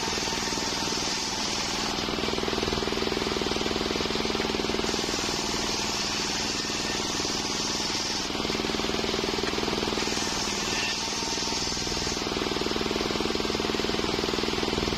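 Homemade circular sawmill running steadily with a fast rapping drive, while a higher hissing whine comes and goes several times as the blade cuts through waru wood.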